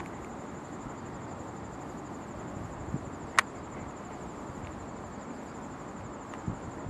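Insects chirping in one steady high-pitched trill, with a single sharp click about three and a half seconds in and a couple of dull low thumps.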